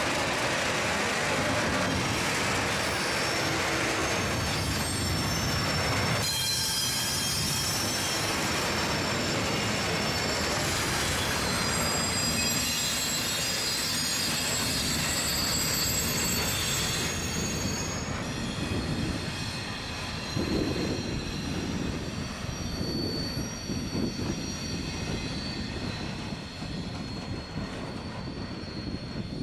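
A Class 66 diesel-electric locomotive (EMD two-stroke V12) hauling a freight train past at low speed, with the wagon wheels squealing in high, ringing tones. The sound eases off in the last third as the wagons roll away.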